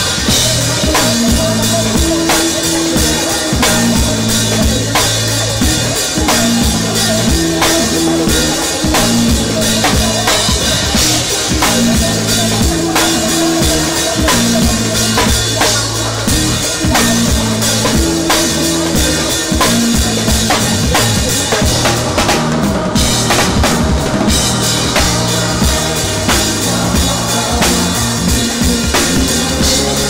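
Live drum kit playing a steady mid-tempo R&B groove with a full band. The cymbals drop out for a moment about two-thirds of the way through.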